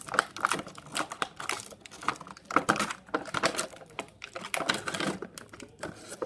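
Plastic toy packaging crinkling and clicking as it is handled and small toy pieces are pulled out, in quick irregular snaps.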